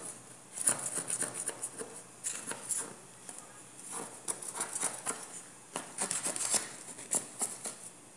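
Knife blade scraping around the inside wall of a metal tube cake pan, in irregular bursts of short scraping strokes, loosening a baked cornmeal cake from the sides before it is turned out.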